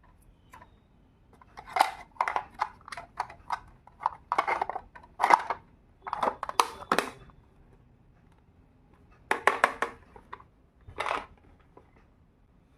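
Tiny toy kitchen pieces being handled: clusters of small clicks and clatters in bursts, with a pause of about two seconds before two shorter bursts near the end.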